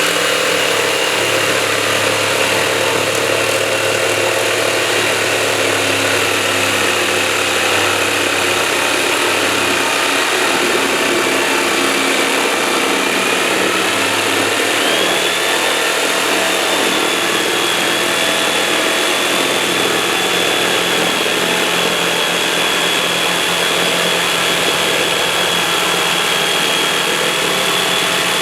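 Electric jigsaw running continuously as it cuts, a steady motor noise with a high whine that steps up in pitch about halfway through.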